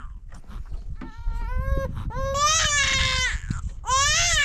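An infant crying in three long, high-pitched wails of about a second each, the last still going at the end.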